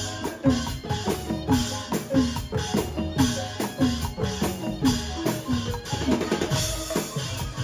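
Instrumental music with a steady beat of struck percussion and short pitched notes.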